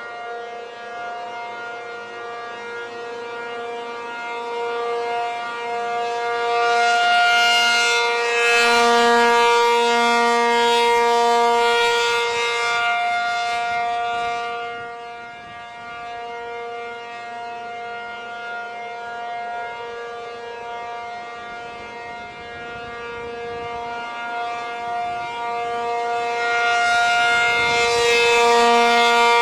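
P-50 tornado siren sounding a steady, unchanging chord. It swells louder and fades again in a slow cycle of about twenty seconds, loudest about a third of the way in and again near the end.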